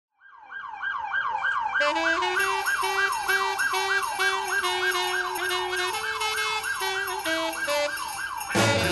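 Emergency vehicle siren in a fast repeating yelp, about three sweeps a second, with sleigh-bell jingling joining about two seconds in. A sudden fuller, louder sound comes in just before the end.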